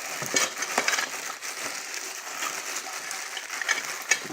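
Plastic packaging crinkling and rustling as packed grinder parts are handled, with a few light clicks.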